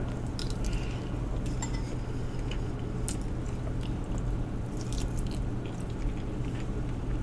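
A person chewing a mouthful of rice and biting into a piece of food close to the microphone, with scattered light clicks of a spoon and fingers at a glass bowl, over a steady low hum.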